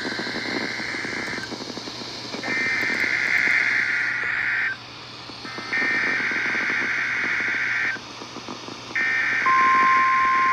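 Emergency Alert System SAME header received on a NOAA Weather Radio receiver: repeated bursts of buzzy, warbling data tones, each about two seconds long with about a second between them, over a faint hiss. Near the end a steady single beep-like tone comes in under the last burst.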